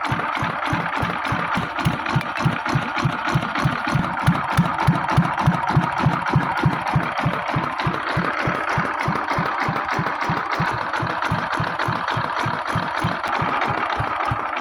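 Rebuilt engine running at a slow idle, just brought back to life after its parts were refitted. It has an even chugging beat of about four firing pulses a second over steady mechanical clatter.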